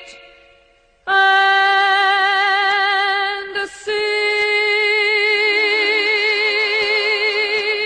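Background music: a woman's singing voice holds two long notes with a strong vibrato, with a short break between them about three and a half seconds in. The music drops away briefly before the first note starts about a second in.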